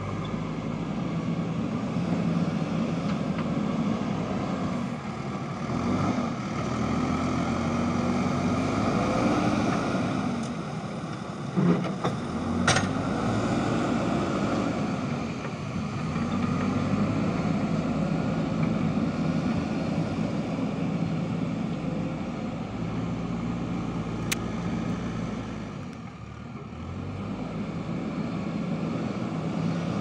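JCB backhoe loader's diesel engine running under working load, its note swelling and sagging repeatedly as the digging hydraulics are worked. A few sharp knocks come about twelve seconds in, and the engine drops off briefly near the end.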